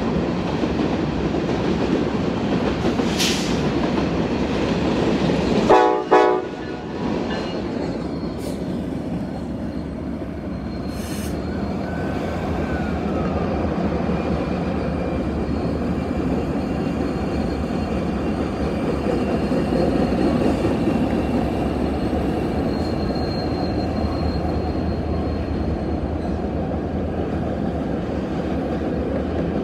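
A train rolling past with a steady noise from its wheels and running gear, and a short train horn blast about six seconds in.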